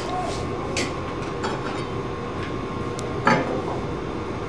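Steady hum and rumble of shop background noise, with a few light clicks and one sharper knock about three seconds in as a square and measuring tools are handled on a wooden board.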